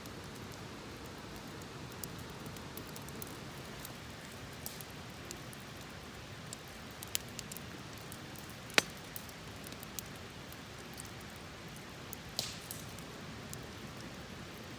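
Wood campfire crackling: a steady hiss with scattered sharp pops, the loudest about nine seconds in.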